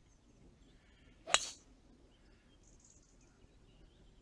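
A single sharp crack of a golf driver striking a teed ball, about a second and a third in.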